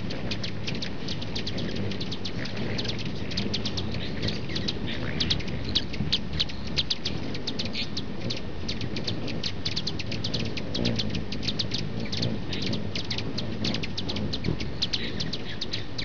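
Hummingbirds giving rapid, high chirps, many short chips a second without pause, over a steady low noise.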